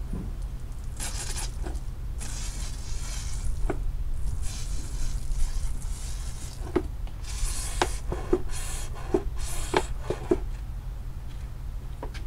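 Stiff deck brush scrubbing a wet rug in repeated strokes of a second or so each, with several short sharp knocks in the second half.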